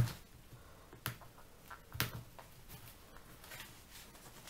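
Plastic pry tool clicking and scraping against the edge of a tablet's cracked glass screen as it tries to get under an edge that has glued itself back down: three sharp clicks about a second apart, then softer handling.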